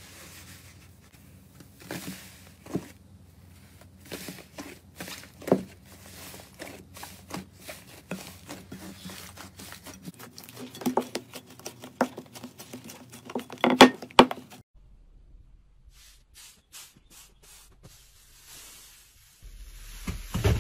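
Hands pressing, squeezing and stretching slime: a run of sticky clicks, crackles and small pops, the loudest pair about two-thirds through. Then a quieter stretch of faint clicks before louder squishing starts again near the end.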